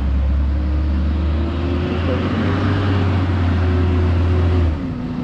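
Garbage truck engine running at raised revs with a loud low rumble, its pitch climbing slowly over the first couple of seconds, holding, then dropping back toward idle about half a second before the end.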